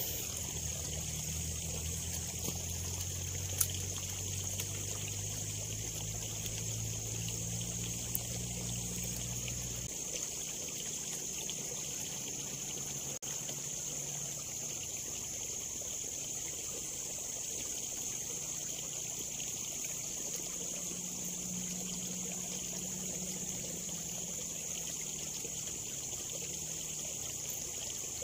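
Steady trickle of water in a small ditch, with a constant high hiss over it. A low hum underneath stops about ten seconds in, and there are a couple of faint ticks.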